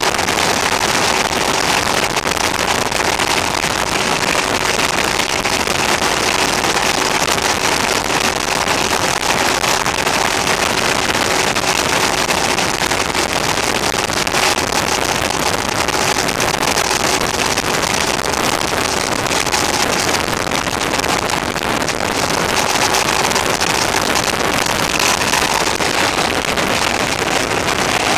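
Steady rush of wind over a motorcycle-mounted camera's microphone at cruising speed, with the bike's engine as a faint steady note underneath. The camera's recording level is set a little too high, so the sound is harsh and poor.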